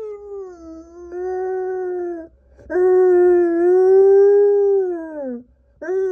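Samoyed howling at being left alone: two long, held howls that drop in pitch as they end, with a third starting near the end.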